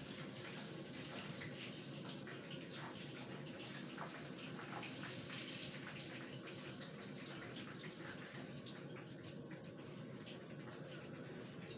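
Coated chicken deep-frying in hot oil: a steady sizzle with scattered small pops, easing off a little toward the end.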